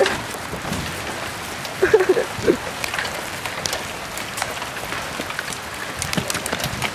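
Hailstones falling and striking the ground and surfaces: a steady hiss with many sharp clicking impacts. A brief voice sound cuts in about two seconds in.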